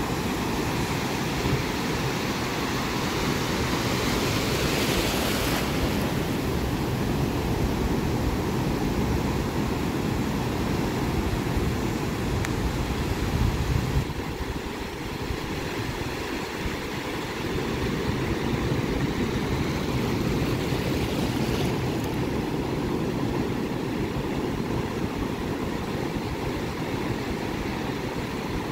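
Pacific surf breaking and washing over the shallows, a steady rush of waves, with one louder hiss of a breaking wave about four to five seconds in.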